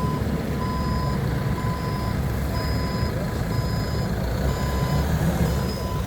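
Forklift backup alarm beeping about once a second, each beep about half a second long, over the steady running of the forklift's engine as it reverses.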